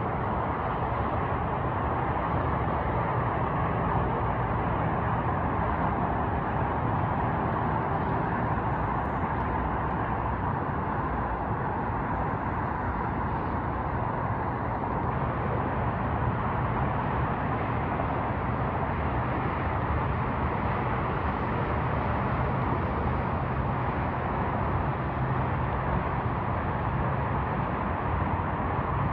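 Steady, continuous roar of distant freeway traffic: an even wash of tyre and engine noise from many cars, with a low rumble underneath.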